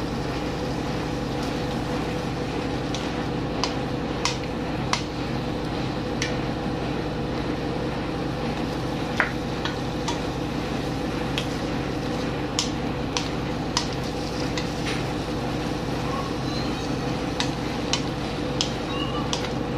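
A wooden spatula stirs chicken and tomatoes in a nonstick frying pan, tapping and scraping against the pan in short, scattered clicks over a steady background hum.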